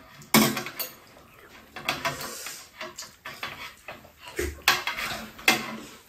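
Spoons and chopsticks clinking and scraping against ceramic bowls while eating soup, with a few sharp clinks scattered through.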